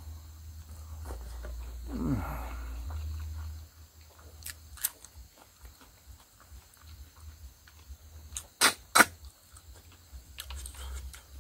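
Eating sounds of a person eating by hand: scattered sharp mouth clicks and smacks, the loudest a pair in quick succession about nine seconds in, after a brief low murmur of the voice about two seconds in.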